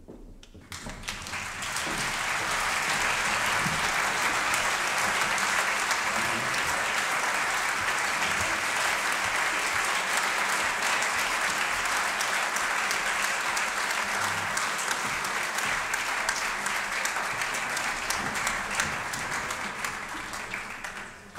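Concert audience applauding, swelling about a second in, holding steady, then fading away near the end.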